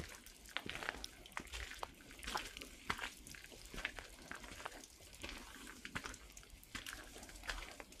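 Footsteps crunching on a wet gravel trail at a steady walking pace, each step a short cluster of gritty crackles, with occasional soft low thuds.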